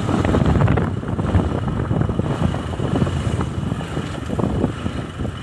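Motorcycle engine running as the bike rides along, with wind buffeting the microphone.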